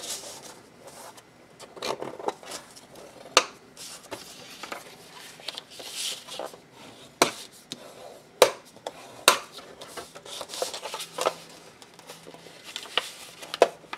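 Paper envelope being folded and its creases burnished with a bone folder: soft rubbing and swishing of paper and folder, broken by several sharp clicks and taps.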